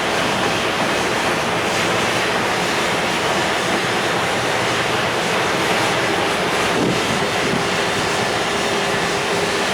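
Freight train's container wagons rolling past, a loud steady rumble and rush of wheels on rail. A faint thin whine comes in about seven seconds in.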